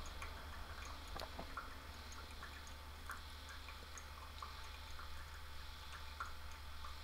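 Hot water poured in a thin stream from a stainless steel stovetop kettle onto ground coffee in a ceramic pour-over dripper: a faint trickle with scattered small ticks.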